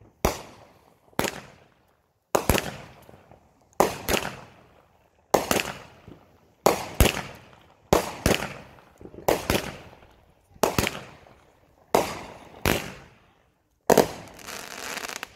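Aerial fireworks going off shot after shot: about a dozen sharp bangs a second or so apart, each trailing off, with a longer crackling stretch near the end.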